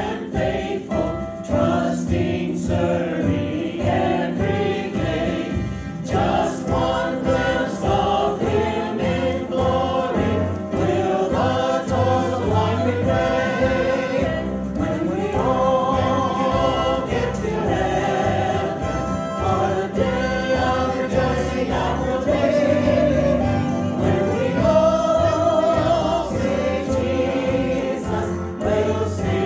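A group of voices singing a hymn together over instrumental accompaniment with a steady beat.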